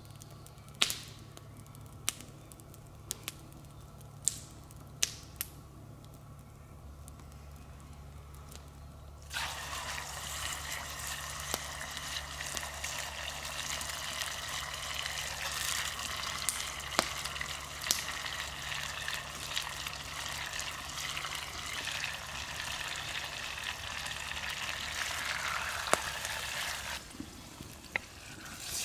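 Food sizzling and crackling in hot oil in a pan. It starts suddenly about a third of the way in and cuts off near the end, after a few sharp clicks in the quieter opening.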